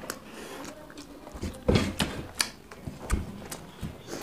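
Eating by hand: irregular clicks and taps of fingers working rice on a steel plate, mixed with chewing, with a louder knock a little under halfway through.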